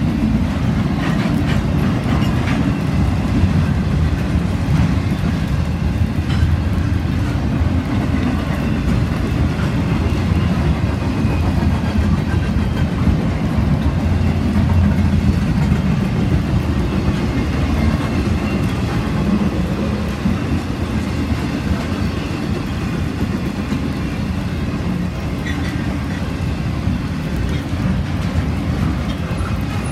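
Double-stack intermodal freight train's loaded well cars rolling past at speed: a steady low rumble of steel wheels on rail, with scattered clicks.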